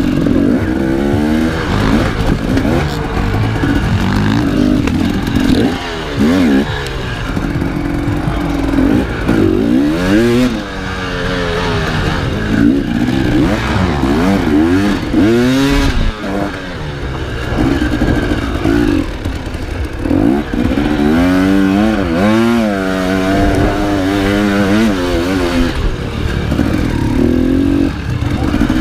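Enduro motorcycle engine being worked hard, its revs rising and falling over and over as the throttle is opened and closed.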